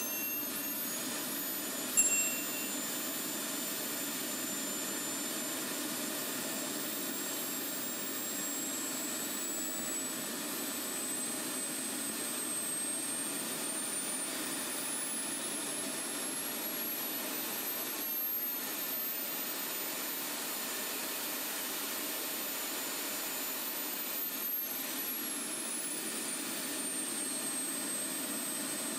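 Model jet turbine running on diesel on a thrust test stand, spooling up under its ECU's start and calibration sequence: a steady rushing noise with a high whine that climbs for about ten seconds, holds, then drops a few seconds before the end. A short beep sounds about two seconds in.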